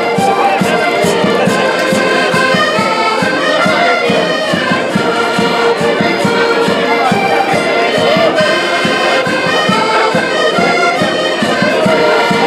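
An accordion ensemble playing a traditional folk tune together, many accordions sounding the melody in unison over a steady beat.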